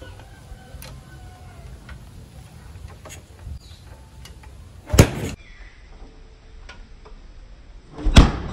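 Kawasaki Binter Merzy (KZ200) single-cylinder motorcycle being kick-started: two short, loud strokes of the kickstarter turning the engine over, about three seconds apart. The engine does not keep running after the first kick.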